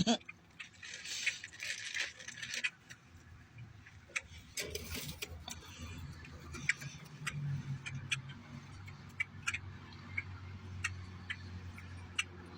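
Scattered short sharp clicks and light rattling, with two brief rustling patches early on and a low steady hum starting about four seconds in.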